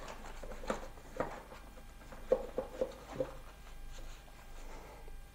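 Rigid cardboard box being handled as its lid is lifted off: a short series of soft knocks and taps, about six in the first three and a half seconds, then quieter.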